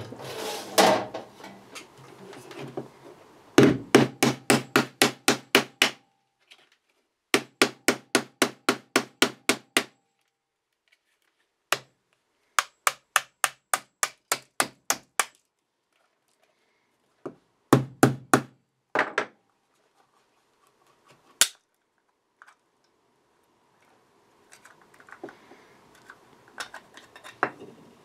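A hammer tapping on the plastic case of a small AC adapter plug pack to crack the shell open: quick runs of sharp strikes, about four a second, with short pauses between runs and a few last single blows.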